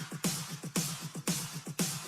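Electronic dance music with a steady drum beat, about two strong beats a second.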